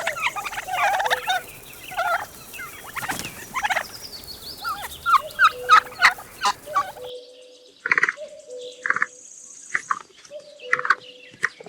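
Turkeys gobbling, a run of rattling calls. After a few seconds it changes to separate short gobbles about a second apart.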